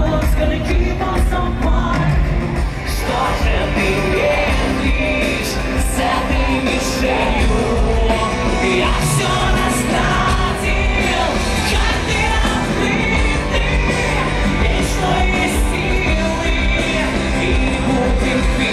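Live pop song with a singer, played loud over a concert sound system, with a strong bass.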